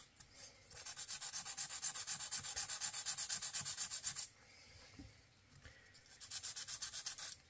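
Fine 1000-grit sandpaper rubbed in quick back-and-forth strokes over a thin piece of can metal, sanding off the burr around a pinhole. A run of strokes lasting about three seconds, a pause, then a shorter run near the end.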